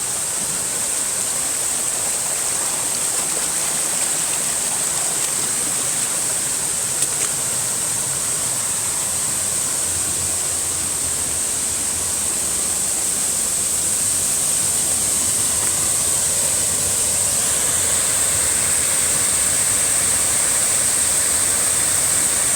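Twin waterfall pouring into its pool: a steady rush of falling water that grows a little louder over the second half.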